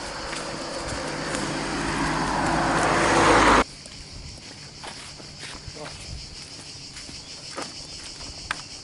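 A vehicle approaching and growing steadily louder, cut off abruptly about three and a half seconds in. It is followed by quieter light clicks and taps, with insects buzzing steadily throughout.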